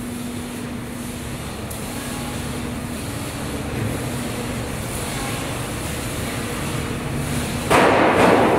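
Steady workshop machinery rumble with a faint hum. Near the end a sudden, louder burst of noise comes in and starts to fade.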